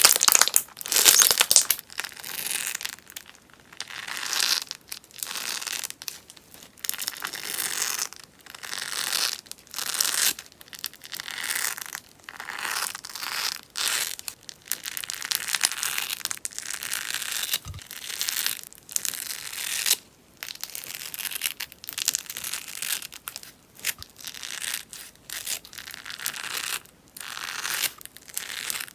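Crunchy sponge slime (slime mixed with pieces of sponge) crackling and popping as it is worked, in short repeated bursts about once a second.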